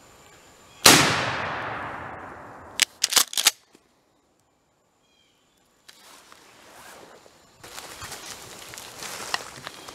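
A single shotgun blast at a turkey about a second in, echoing away through the woods for about two seconds. A quick run of sharp clicks and knocks follows, and near the end comes a stretch of rustling through dry leaves.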